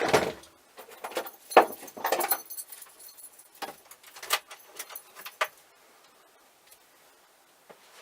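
Hand tools and small metal parts being handled: a run of clinks, rattles and knocks, loudest near the start and about one and a half seconds in, dying away to a few faint ticks after about five and a half seconds.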